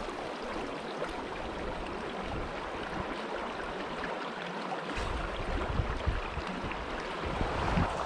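Shallow brook running, a steady rush of flowing water. From about five seconds in, low rumbling and a few bumps come from the camera being handled and carried.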